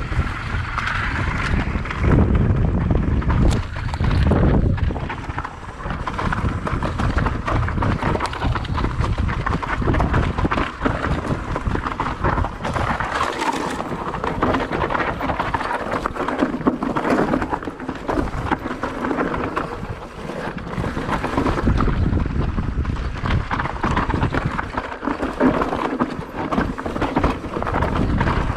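Electric mountain bike descending rough downhill trail: wind buffeting the microphone, with tyres crunching over dirt and rock and the bike rattling in constant small knocks.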